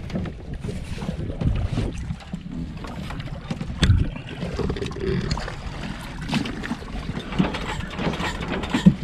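Wind buffeting the microphone and water washing around a small fishing boat, with a few irregular knocks, the loudest about four seconds in.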